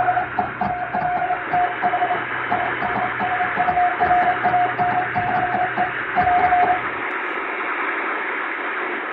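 Morse code (CW) telegraph tone keyed in dots and dashes over shortwave-style hiss, static crackle and fading. The keying and a low hum stop about seven seconds in, leaving only the hiss.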